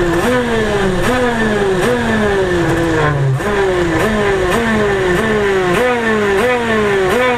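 KZ shifter kart's 125cc two-stroke engine at racing speed, its pitch jumping up sharply and sliding down again over and over, about every three-quarters of a second, with a short break about three seconds in.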